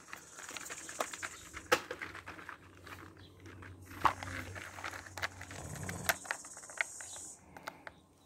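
Scattered crinkles and sharp clicks of plastic being handled and stepped on, a plastic ground tarp and a plastic tub, over a steady high hiss that stops shortly before the end.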